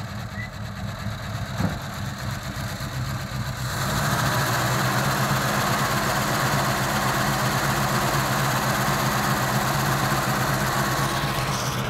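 AMC Javelin's 360 V8 idling just after starting, running a little rough and rattly, which the owner puts down to the engine having sat for about 20 years. About four seconds in it gets louder and brighter, heard close over the open engine bay.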